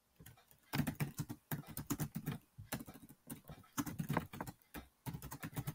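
Computer keyboard being typed on: a quick run of keystrokes with a few short pauses.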